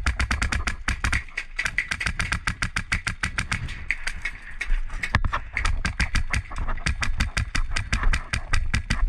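Airsoft gun firing full-auto in long strings of rapid sharp cracks, about ten shots a second, with brief breaks between bursts.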